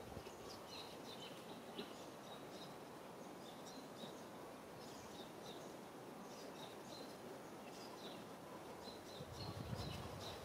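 Outdoor ambience: a steady background hiss with small birds giving short, high chirps again and again, and a low rumble near the end.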